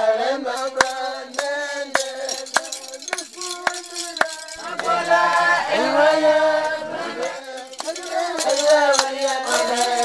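Group of voices chanting in held, sung notes, with rattles shaking in sharp clicks here and there.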